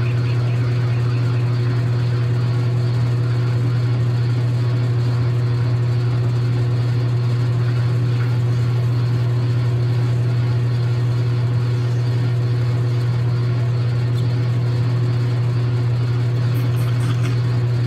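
Logan 6560 lathe running steadily with a low, even hum while the tool turns a nylon bar.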